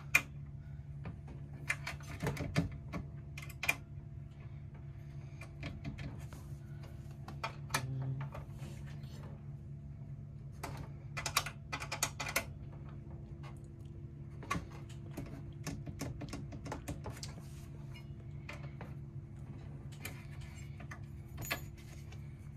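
Scattered light clicks, taps and rattles of wires and the sheet-metal chassis of an RV power converter being handled and worked into its cabinet opening, some in quick clusters, over a steady low hum.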